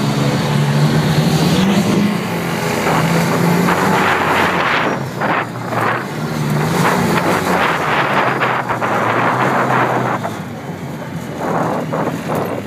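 Off-road vehicle engine running as it drives over sand dunes, its pitch stepping up and down with the throttle. Bursts of rushing noise come through the middle stretch.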